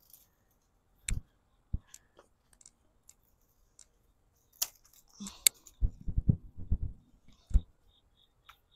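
Scattered clicks and soft rustling from hands working through ash gourd vines and leaves on a garden trellis, with a quick run of low knocks a little past the middle.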